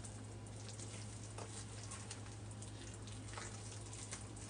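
Faint wet crackling and squishing of hands working a thick powder-and-water cleaning paste, over a steady low hum.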